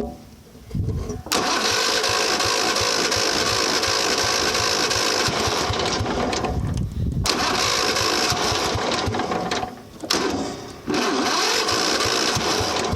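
Riding lawnmower engine being cranked over by its starter in three long bursts, each starting and stopping abruptly with short pauses between.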